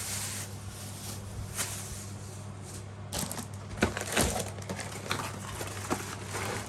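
Plastic packaging and ring-light kit parts being handled, rustling and clicking, with a few sharper knocks about three to four seconds in, over a steady low hum.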